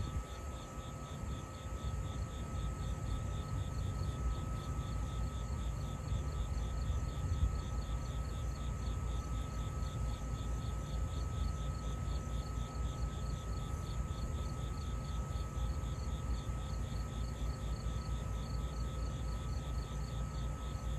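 Outdoor background of insects chirping in a steady, even pulse over a low rumble and a faint steady hum.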